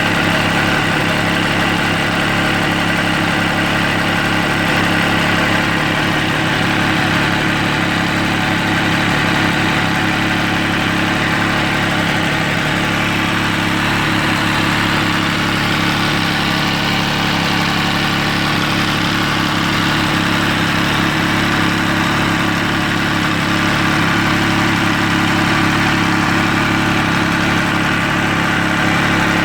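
Motorcycle engine of an MV Agusta Stradale 800, an 800 cc three-cylinder, idling steadily while warm. It is running to pressurise the cooling system so the repaired radiator can be checked for leaks.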